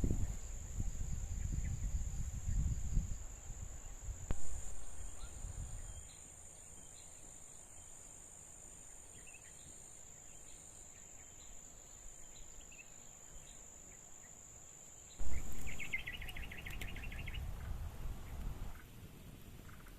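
Insects buzzing in one steady high-pitched drone, joined for a few seconds by a second, higher one; the drone stops suddenly about three-quarters of the way through. Low rustling and handling noise comes and goes, with a sudden thump near the end followed by a brief rapid chirping trill.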